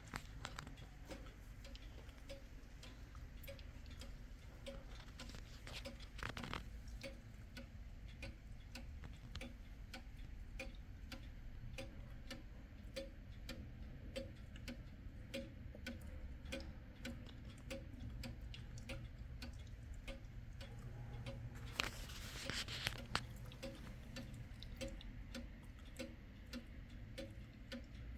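Kienzle pendulum wall clock ticking steadily, its escapement giving an even tick-tock. A short noisy rustle cuts in about two-thirds of the way through.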